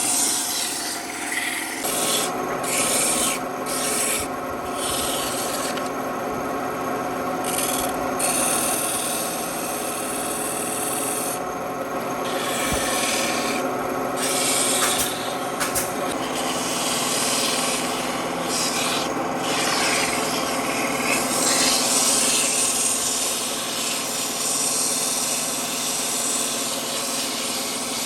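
Electric power tool running steadily while sanding or grinding dry wood, a rasping abrasive hiss over the even whine of its motor. The high hiss drops out briefly several times while the motor keeps running.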